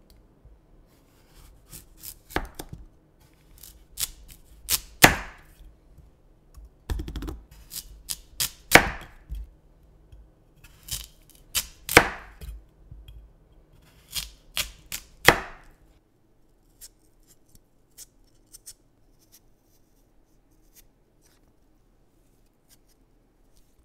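Kitchen knife slicing a daikon radish into thick rounds on a cutting board. Each cut ends in a sharp knock of the blade on the board, four loud knocks about three to four seconds apart with smaller cutting clicks between them. After them there are only faint light clicks.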